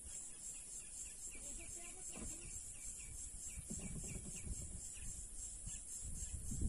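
Outdoor countryside ambience: a bird calling in a quick run of short, repeated falling notes, over a steady high pulsing insect trill. Low wind rumble on the microphone builds in the second half.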